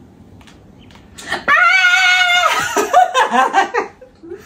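A woman's high-pitched excited squeal, held steady for about a second, breaking into laughter.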